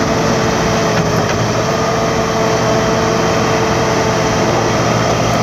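Heavy diesel engines of a wrecker tow truck and a Caterpillar 963C track loader running steadily during a winch pull, with a constant whine over the engine sound.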